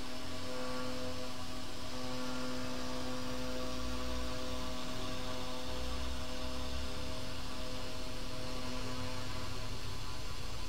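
Spindle motor of a small desktop three-axis CNC engraving machine running steadily while it engraves a board, giving a hum of several steady tones over a low, shifting rumble.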